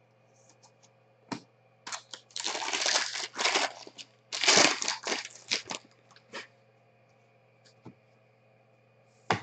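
Foil trading-card pack wrapper being torn open and crinkled by hand, in two bursts of a second or two, followed by a few light taps of cards set down.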